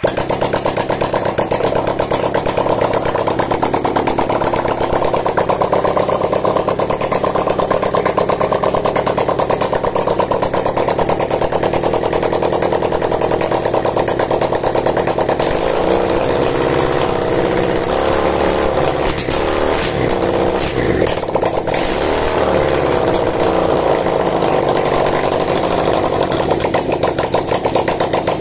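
Homemade 400cc V-twin engine built from Honda Tiger motorcycle engine parts, fed by a single carburettor, running loudly with a fast, even stream of firing pulses; the note turns uneven for a few seconds a little past the middle. This is its first test run, with the carburettor not yet tuned.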